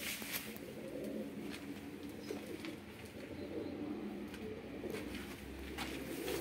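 Domestic pigeons cooing, with a few light knocks.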